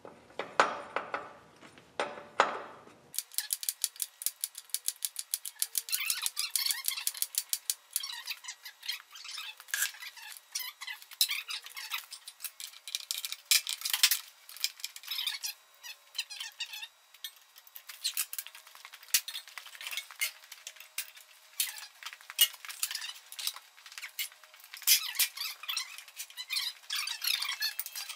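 Quick, irregular metallic clicking and clinking of a hand wrench working the bolts that join the split halves of the tractor back together. From about three seconds in the sound turns thin, with no low end, and the clicks come fast and dense.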